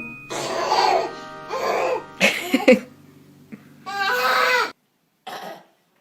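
Background music under short vocal bursts from a small child, cough-like noises and a brief cry, with one longer wavering vocal sound about four seconds in. The sound cuts off abruptly twice near the end.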